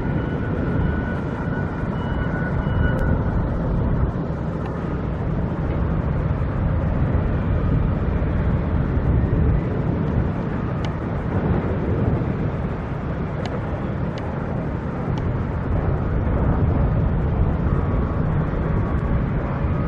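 Steady low rumble of vehicle engines and traffic noise, with no single event standing out.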